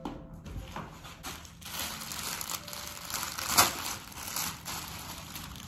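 Clear plastic poly bag crinkling and crackling as a garment is handled and worked out of it, with one sharper, louder crackle about three and a half seconds in.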